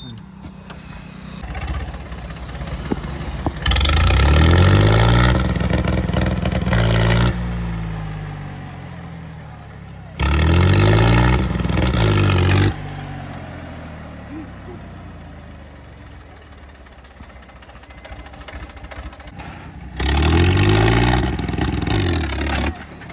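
Mahindra 265 DI tractor's three-cylinder diesel engine revved hard three times, each burst lasting two to three seconds, running more quietly in between.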